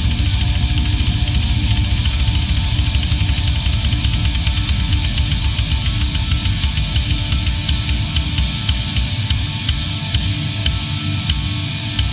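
Death crust band playing at full tilt: heavily distorted guitars and bass over fast, dense drumming, with no vocals.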